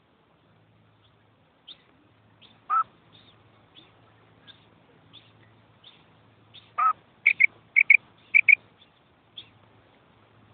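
Female quail calling: soft, high chirps repeated roughly every 0.7 seconds, two louder, lower calls, and three quick double notes just past the middle.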